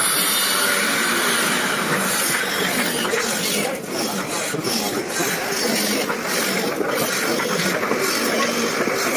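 Steady, loud noise of machinery running. From about three and a half seconds in there is a run of sharp knocks and clatters as cut wooden pieces are handled.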